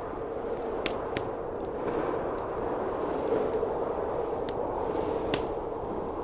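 Wood fire crackling with scattered sharp pops, one louder pop about five seconds in, over a steady howl of blizzard wind.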